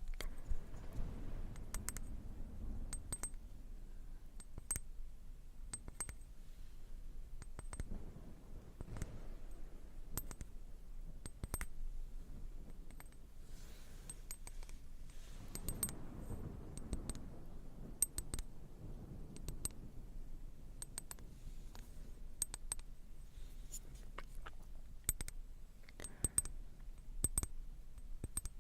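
Slow, irregular taps on a glass object, each a sharp clink with a short bright ring.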